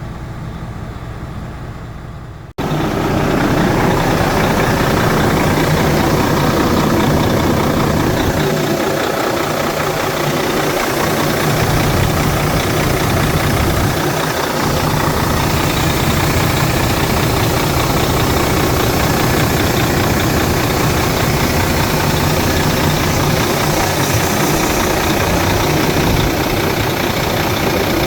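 Volvo D13 inline-six diesel truck engine idling steadily after reassembly. It becomes abruptly louder about two and a half seconds in.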